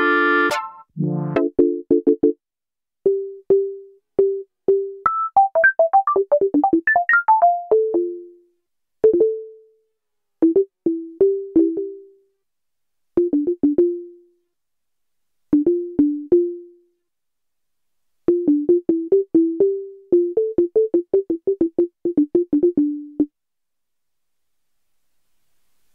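Novation Circuit Tracks synth preset playing a sequenced pattern of short notes with sharp starts, mostly low-middle in pitch, with a quick run of higher notes about a quarter of the way in. The pattern stops a few seconds before the end.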